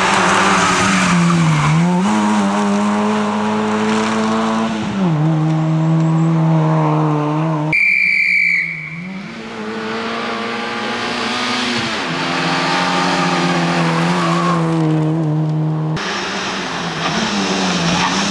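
Fiat Seicento Sporting Abarth rally car's small four-cylinder engine run hard at high revs through corners, its pitch dropping and climbing again several times with lifts and gear changes. A brief high squeal comes about eight seconds in.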